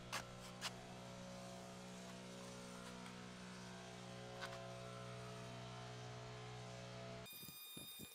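A faint steady electrical hum, with a few light taps and rustles near the start and once about halfway through as the carpet is handled. Near the end the hum cuts off and is replaced by faint, thin, steady high tones.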